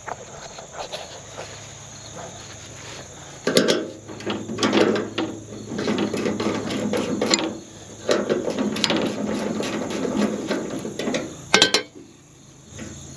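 A 9/16 ratcheting wrench clicking in several stretches as bolts are backed out of a tractor's side panel, then a couple of sharp metal clicks.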